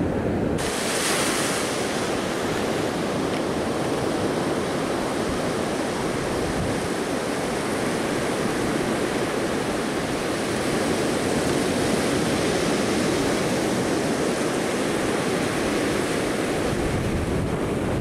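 Ocean surf breaking and washing on a sandy beach, a steady rushing noise, with wind buffeting the microphone in an uneven low rumble.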